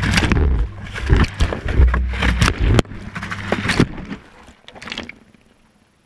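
Inside the drum of a Whirlpool Indiana 1400 front-loading washing machine during a wash: water sloshing with a low rumble and repeated knocks as the drum tumbles. The noise thins out and stops about five seconds in as the drum comes to rest, leaving near silence.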